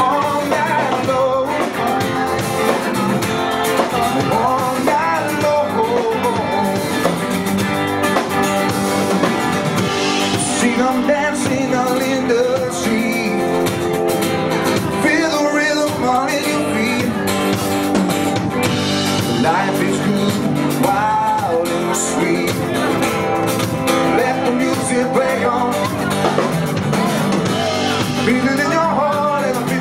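Rock-and-roll style music with guitars and a singing voice, playing without a break.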